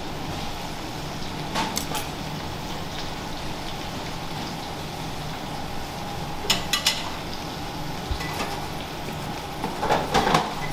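Butter and black pepper sizzling steadily in a small stainless steel sauté pan on an induction hob, beside a pot of pasta on the boil. Short metal clinks of utensils and pans come in pairs about a second and a half in and around six and a half seconds, then a cluster near the end as the pan is handled.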